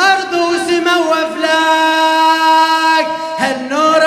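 A male raddod chanting a hosa, unaccompanied, in Arabic. About a second and a half in he holds one long steady note, then moves back into a wavering melodic phrase near the end.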